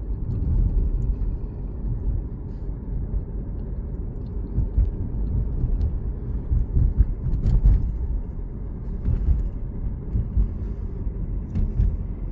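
Alfa Romeo Giulia's 2.2 four-cylinder diesel idling cold, a steady low rumble with a few light clicks scattered through it, one sharper one past the middle. This is the cold-idle running in which the owner hears a ticking clatter that comes in once the revs have dropped.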